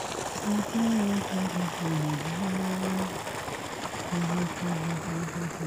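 A low voice humming a slow tune in held notes that step up and down, in two phrases with a short pause between them, over a steady outdoor hiss.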